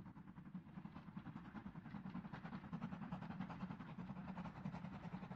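Steam tank locomotive hauling a passenger train, working steadily with rapid, even exhaust beats.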